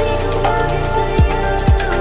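Background music with steady tones and deep bass kicks that drop in pitch, twice about half a second apart.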